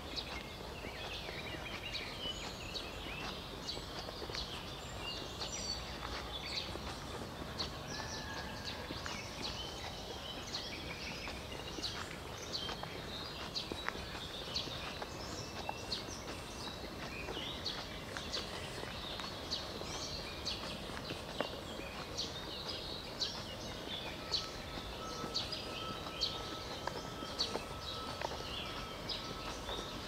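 Many songbirds singing together in a morning chorus, a dense run of short chirps and trills, over a steady low background rumble. A thin steady tone comes in about 24 seconds in and holds.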